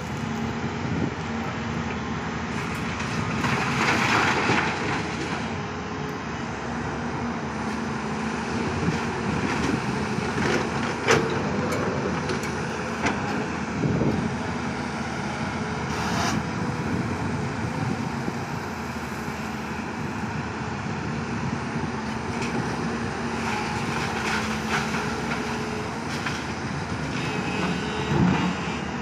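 Diesel engines of two working crawler excavators, a JCB and a Volvo, with a dump truck nearby, running steadily under load while digging and swinging. The drone holds an even pitch, broken by a few sharp knocks and clanks.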